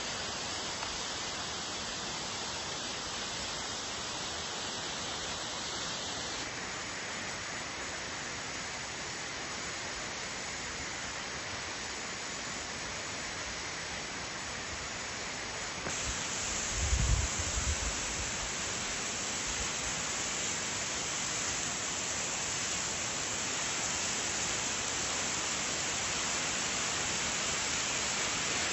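Steady rush of water from an iced-over mountain waterfall, its tone changing abruptly twice. A brief low thump comes a little past the middle.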